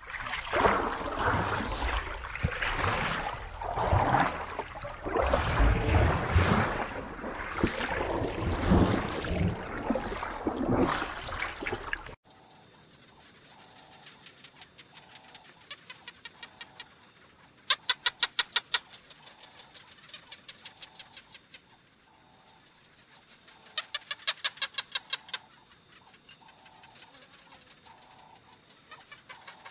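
Underwater rushing and bubbling that surges and pauses, then a sudden switch to a steady high insect buzz. Over the buzz come two short bursts of rapid ticking calls, each about a second long.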